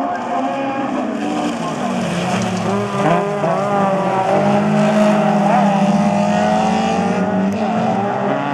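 Several rallycross cars racing close together, their engines revving hard with pitch rising and falling through gear changes, louder from about three seconds in as the pack passes close.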